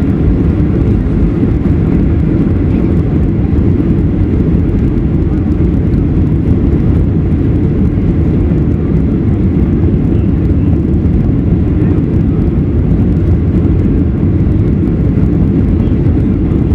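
Steady, deep cabin noise inside a Boeing 737 on landing approach with its flaps extended: the jet engines and the rush of air over the wing, heard from a window seat over the wing.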